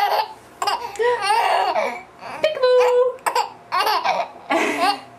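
Baby laughing in a string of short, high bursts with brief pauses between them.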